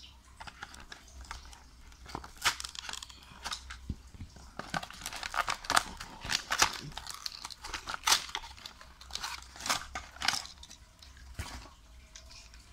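Cardboard toy packaging being handled and pulled apart by hand: a run of irregular crinkling, scraping and crackling rasps, busiest in the middle and thinning out near the end.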